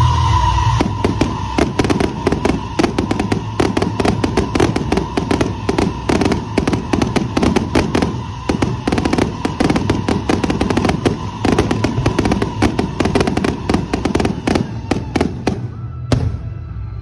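Fireworks display: a rapid, continuous crackle of many small bursts over a low rumble, with a steady high tone held above it; the tone and the densest crackling stop shortly before the end.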